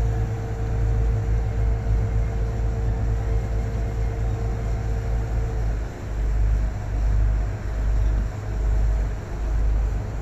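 A river cruise boat's engine droning, a steady low rumble, with a faint hum over it that stops a little past halfway.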